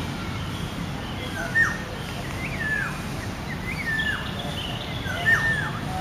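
Black-naped orioles calling: four whistled notes, each sliding down in pitch, about a second or so apart, over a steady low background rumble.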